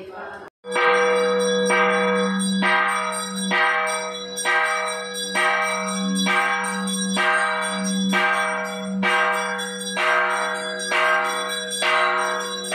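A large temple bell struck over and over at an even pace, about one stroke a second, each stroke ringing on into the next. It starts suddenly about half a second in.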